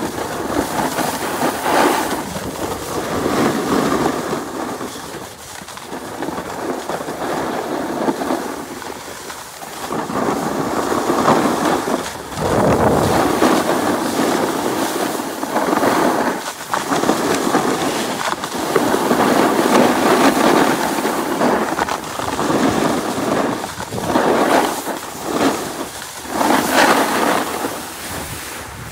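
Snowboard sliding down a groomed run, its edges scraping over packed snow in swells that rise and fall every few seconds and ease off near the end.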